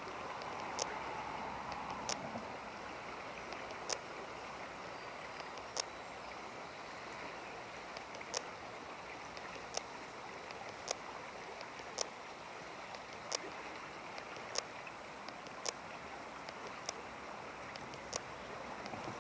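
Steady rushing of a river's flowing current, with sharp ticks repeating about every second or so.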